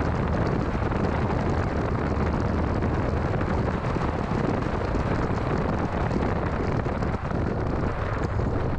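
Steady, heavy rumble of a 2006 Mini Cooper S on the move: road and engine noise mixed with wind buffeting the microphone.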